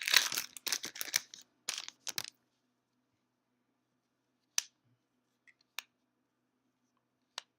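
Foil booster pack wrapper crinkling and tearing for about two seconds, then quiet with three single small clicks as the cards are handled.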